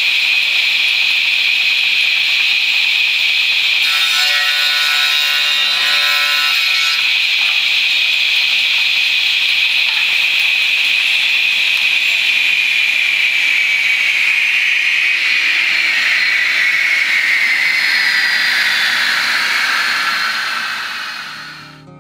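Northtech SRS-12 straight-line rip saw running with a steady high whine, with a board ripped through it about four to seven seconds in. In the second half the saw is switched off: the whine falls in pitch as the blade spins down and fades out near the end.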